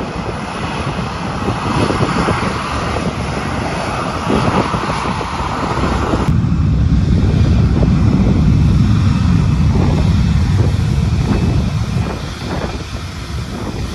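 Jet airliner engines running close by, with a steady hiss as a Boeing 737 taxis. About six seconds in the sound changes abruptly to a deep low rumble, which eases off near the end.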